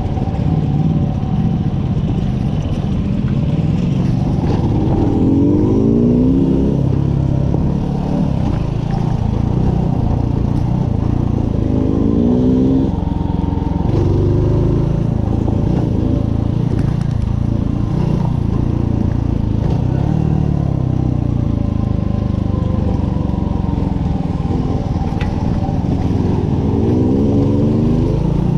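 A Mutt motorcycle's single-cylinder engine running under load, heard from the bike itself as it rides a rough dirt track. The revs climb sharply three times: about five seconds in, around twelve seconds, and near the end.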